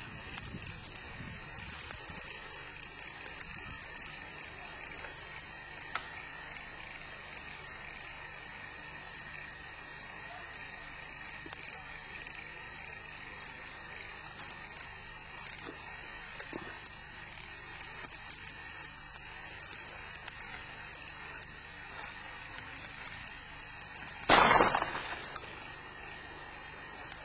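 A single shotgun shot about 24 seconds in, with a short echoing tail. Before it, a steady high insect chirring with a pulse repeating a little under once a second.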